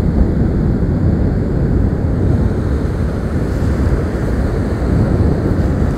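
Strong storm wind buffeting the microphone in a continuous low rumble, with heavy sea surf breaking underneath.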